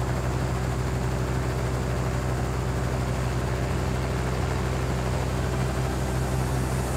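Helicopter in flight heard from inside the cabin: a steady drone of rotor and engine, a low hum under an even hiss, with no change in pitch or level.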